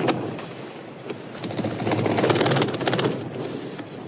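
A gust of wind buffets and flaps the tent's fabric, swelling about one and a half seconds in and easing off near the end.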